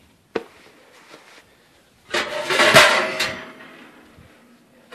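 Metal baking pans being pulled out of the oven, with a sharp click a moment in, then a loud metallic clatter and ring about two seconds in.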